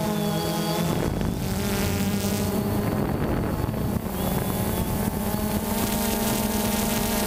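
Quadcopter drone's electric motors and propellers buzzing steadily in flight, the pitch shifting as the motor speeds change near the start and again about four seconds in.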